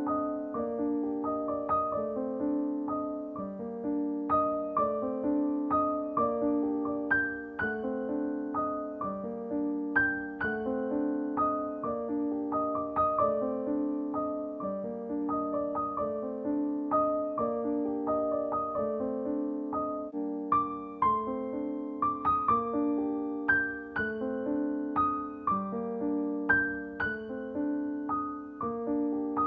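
Background music: a gentle keyboard melody of evenly struck notes in a repeating pattern at a steady pace.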